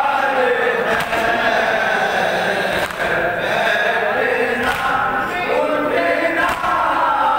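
A chorus of men chanting a noha, an Urdu lament, together, with sharp chest-beating strikes of seena-zani landing about every two seconds.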